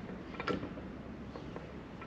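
A few faint clicks and light knocks from handling a dismantled air-conditioning compressor on a steel workbench, the clearest about half a second in, over low shop room hum.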